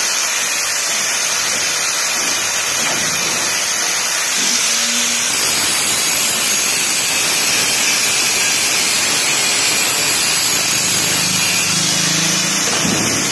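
Electric angle grinder with a sanding disc running steadily, smoothing the steel of the gate so that nothing snags on it.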